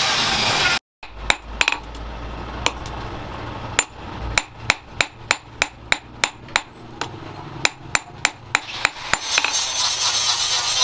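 Hand hammer forging a red-hot steel bearing ball held in tongs on an anvil: a long run of sharp metal blows, about three a second, that stops about nine seconds in. Before it, a loud rushing noise cuts off abruptly under a second in.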